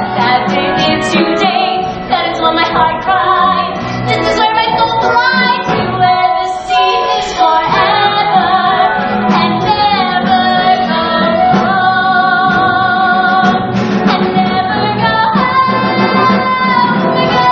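A woman singing a Broadway show tune live, with the theatre orchestra accompanying her, heard from the auditorium.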